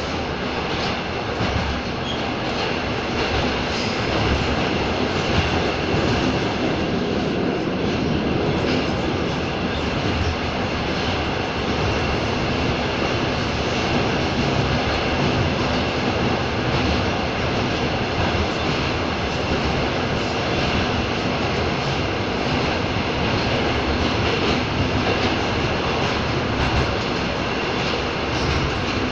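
Rusich articulated metro train running in a tunnel, heard from inside the car: a steady, loud rumble of wheels on rails with a few faint high tones over it.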